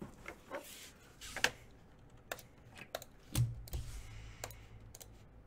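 Irregular keystrokes and clicks on a computer keyboard, with a soft low thump about three and a half seconds in.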